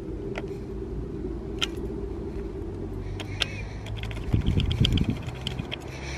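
A doorbell push pressed by hand, with light clicks and keys jingling, over a steady low rumble of road traffic. Faint high tones come in about three seconds in.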